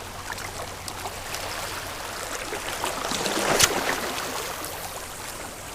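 Ocean wash on the shoreline: a wave swells in and slowly builds to its loudest a little past halfway, with one short sharp click at the peak, then eases off.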